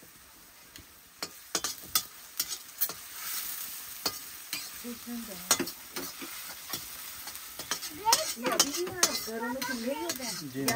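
Potatoes frying in a pan on a wood-fired chulha, sizzling, with a metal spoon clinking and scraping against the pan as they are stirred. A person's voice comes in over it in the second half.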